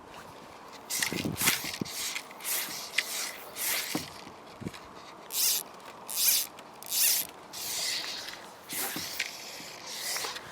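Fly line zipping off the reel and through the rod guides in repeated short pulls as a sinking fly line is worked out for a cast. More than a dozen quick hissing strokes come every half second to second.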